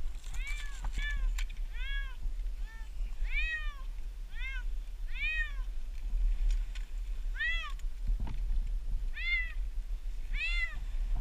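A domestic cat meowing over and over: about ten short calls that each rise and fall in pitch, roughly one a second, with a pause of a couple of seconds near the middle.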